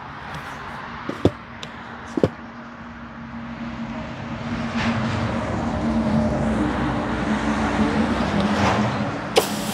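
Greenworks GPW3000 electric pressure washer running with a steady hum. From about four seconds in, the hiss of water jetting through the surface cleaner onto concrete grows louder. A few sharp clicks come in the first couple of seconds and again near the end.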